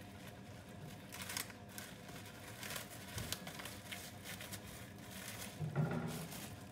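Plastic cling film crinkling as it is peeled back off a bowl of oiled dough balls, in irregular crackles.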